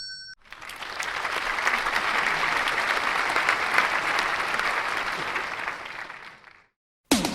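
Crowd applauding: dense clapping that swells in about half a second in, holds steady, then tapers away and stops shortly before the end.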